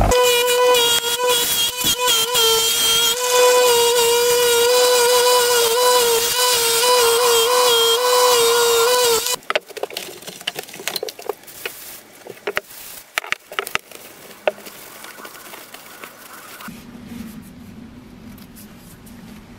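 Bench grinder's wire wheel spinning against a steel cleaver blade: a loud steady whine with a scratchy hiss, wavering slightly in pitch as the blade is pressed and moved. It cuts off abruptly about nine seconds in. Scattered clicks and soft rubbing follow as the cleaver is handled and wiped with a cloth.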